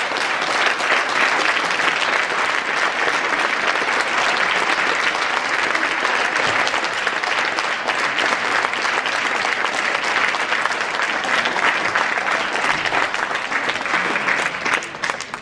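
A crowd applauding, a long steady round of clapping that dies away near the end.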